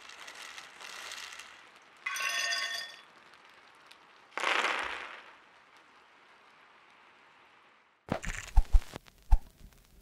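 Gazzew U4T mechanical keyboard switches poured from a plastic bag clatter onto a wooden desk. About two seconds in comes a bright, ringing clinking crash, and a short burst of noise follows a couple of seconds later. Near the end there is a quick run of sharp clicks and low thumps.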